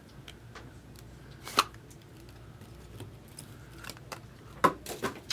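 Scattered sharp clicks and light handling noise from trading-card boxes and packs being handled: one loud snap about a second and a half in, and a quick run of clicks near the end.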